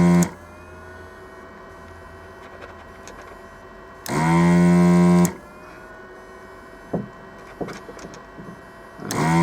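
A small electric motor buzzes at a steady pitch in three bursts of just over a second each, about five seconds apart, with a low steady hum between them.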